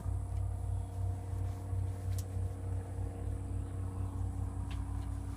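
A steady low machine hum with a few held tones over it, and a single sharp click about two seconds in.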